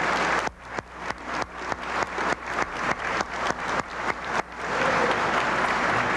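Audience applauding. About half a second in, the dense applause thins to a run of sharp, evenly spaced strokes, about three a second. Full applause returns about four and a half seconds in.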